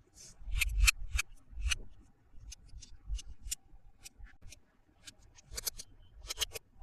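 Toy packaging being opened by hand: a run of sharp clicks and snips of plastic and cardboard, bunched in quick clusters near the start and near the end, with scattered single clicks between.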